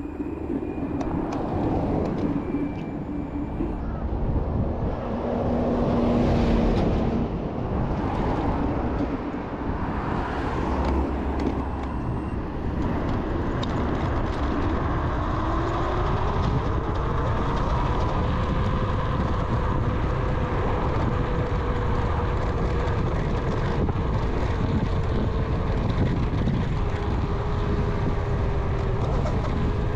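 Kaabo Wolf Warrior electric scooter being ridden, with off-road tyres: a steady rush of wind and tyre noise. Under it the hub motors whine, rising in pitch about halfway through as the scooter speeds up, then holding steady.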